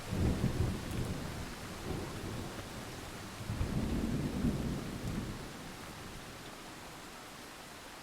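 Thunder rumbling over steady rain: a sudden deep crack and rumble at the start, a second rolling swell about three and a half seconds in, then dying away to the hiss of rainfall.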